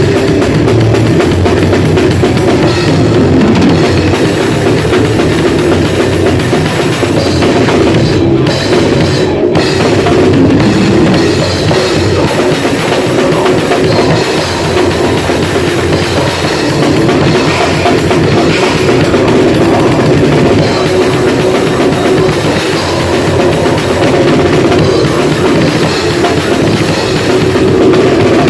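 Grindcore band playing loud and without a break in rehearsal, drum kit to the fore with heavy, distorted rock instruments.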